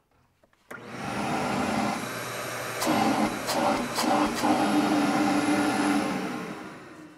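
Ridgid 6.5 horsepower wet/dry shop vac switched on, drawing air through its hose: its motor starts suddenly under a second in and runs steadily with a high whine, with a few sharp clicks between two and four seconds in, then winds down near the end.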